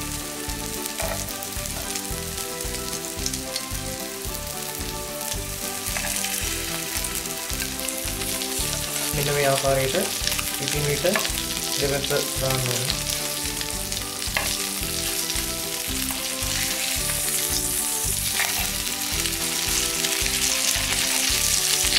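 Chicken piccata cutlets sizzling steadily in hot butter and oil in a frying pan, growing a little louder toward the end. Metal tongs now and then scrape and tap the pan as pieces are turned.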